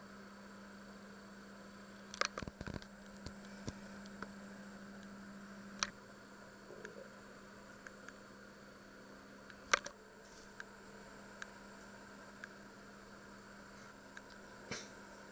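Quiet room tone with a steady low hum that stops about six seconds in, over a faint hiss, broken by scattered small clicks and knocks: a cluster about two seconds in, single sharp ones near six and ten seconds, and a softer knock near the end.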